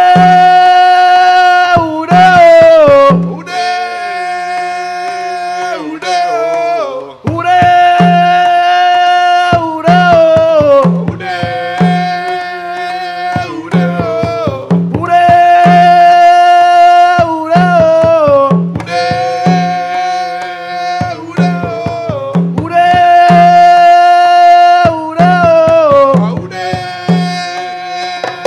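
Live Caribbean percussion music: a male voice sings long held notes that fall away at the end of each phrase, over hand drums beating a steady pattern.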